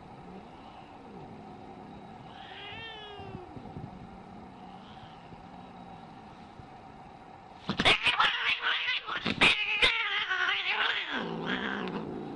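Scottish Fold cat growling low, then about eight seconds in breaking into loud hissing, spitting and yowling: a defensive, angry cat warning off, with sharp spits scattered through the hissing.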